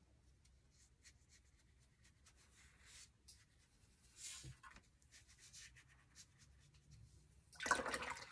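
Round watercolour brush stroking and dabbing paint onto watercolour paper: faint, soft scratchy brushing with small ticks, one firmer stroke about four seconds in. Near the end comes a short, louder rustling noise.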